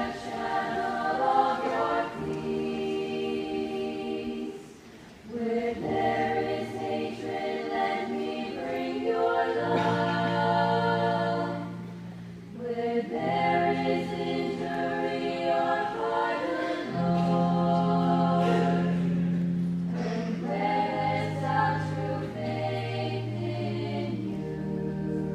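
Choir singing a hymn, with short breaks between phrases about five seconds in and again about twelve seconds in.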